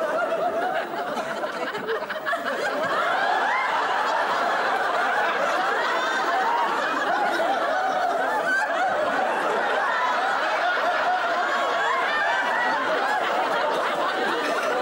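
Studio audience laughter from many people at once, swelling over the first three seconds and then holding steady.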